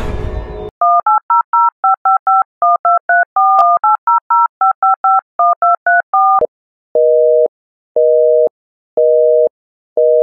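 Telephone keypad touch-tones dialing a long number in a quick run, followed by four evenly spaced half-second beeps of a busy signal.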